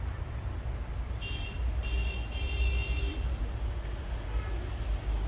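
Low rumble of road traffic. From about a second in, a high-pitched squeal is heard for about two seconds, with a brief break.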